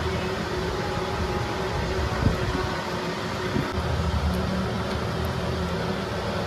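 Steady mechanical hum and noise, with a soft knock a little over two seconds in and another about a second later.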